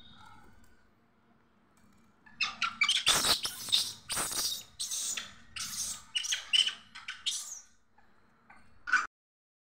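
Rhesus macaques giving a rapid run of shrill squeals and screeches, starting about two seconds in and going on for about five seconds, with one last squeal near the end.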